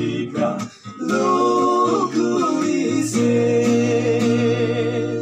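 A song sung to guitar accompaniment. From about three seconds in, the voice holds one long note with vibrato.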